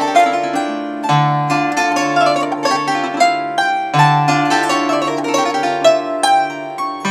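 Traditional (starosvitska) bandura played solo: quick runs of plucked treble strings over low bass strings, which are struck hard about a second in and again about four seconds in and left ringing.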